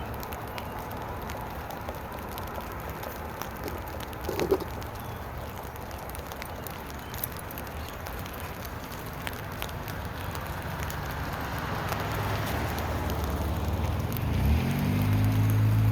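Rain pattering steadily over a low engine hum. A sharp knock comes about four and a half seconds in. Near the end an engine's hum rises quickly in pitch and then holds steady and louder.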